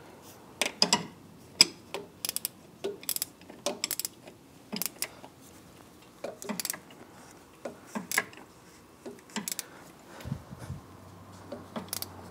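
A half-inch ratcheting combination wrench clicking in short, irregular runs and clinking against metal as the nut on the battery hold-down bar is tightened.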